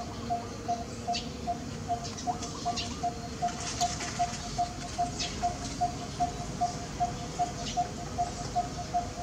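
A soft tone pulsing steadily about two and a half times a second, with brief high chirps or squeaks now and then.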